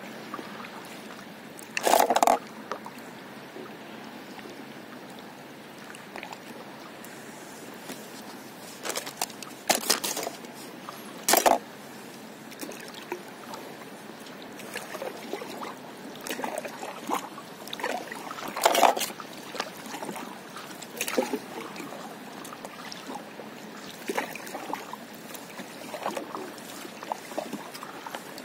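Paddle strokes in calm sea water from a stand-up paddleboard: short splashes and trickling drips at irregular intervals, a few seconds apart, over a steady faint hiss of water.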